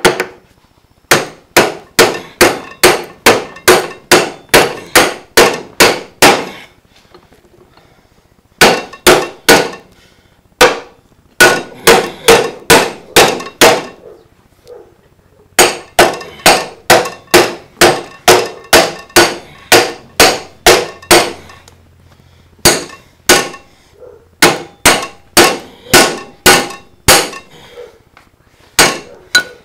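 Hammer blows on the steel rear wheel hub of a Snapper riding mower, driving a stuck hub off its axle. Runs of rapid, ringing metallic strikes, about two to three a second, with short pauses between runs.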